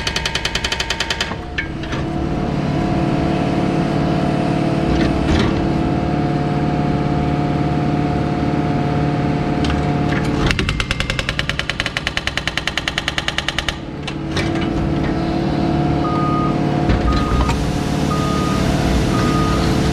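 Excavator's hydraulic breaker hammering in a rapid, even string of blows at the start and again for about three seconds in the middle, with the digger's diesel engine running steadily in between. Near the end a reversing alarm beeps about once a second.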